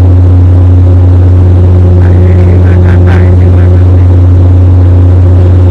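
Turboprop airliner's propellers and engines droning in cruise, heard loud inside the cabin: a steady, deep hum that does not change.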